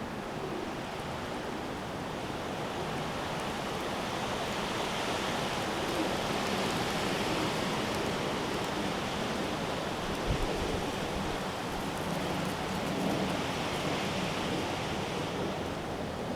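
Storm wind blowing in gusts up to about 40 mph: a steady rushing hiss that swells a little midway, with a brief buffet on the microphone about ten seconds in.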